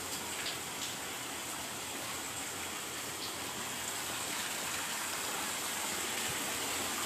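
Steady rushing noise like flowing water or wind, with a steady high band and a few faint ticks.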